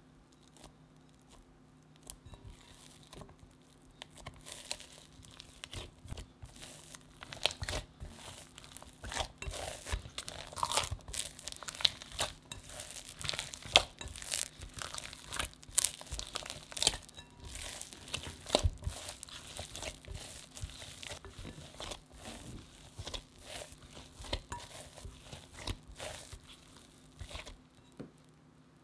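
Hands kneading butter into soft bread dough in a glass bowl: the dough is squeezed, pressed and pulled apart in quick, irregular strokes. They start about two seconds in, are busiest in the middle and thin out near the end.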